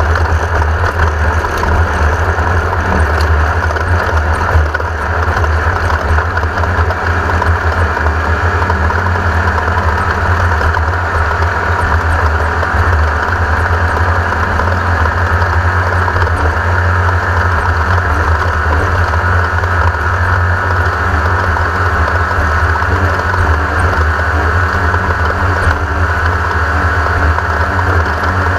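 Loud, steady running of the air-cooled VW engine in a 1982 Race-co class 1600 off-road race car, with a strong low rumble.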